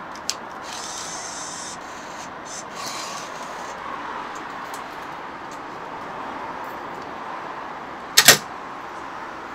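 Meal-ticket vending machine taking a banknote: a short mechanical whir as the bill acceptor draws the note in, over a steady room hum. About eight seconds in there is one sharp clunk as the machine's knob is worked.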